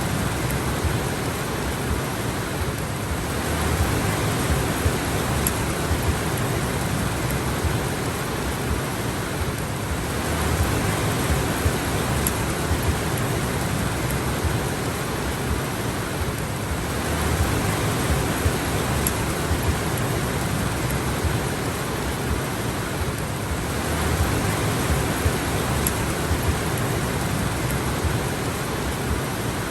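Steady heavy rain falling, an even hiss that swells a little about every seven seconds.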